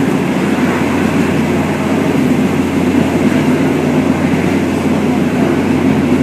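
Steady rumble and running noise of a moving vehicle, heard from on board, even and unbroken throughout.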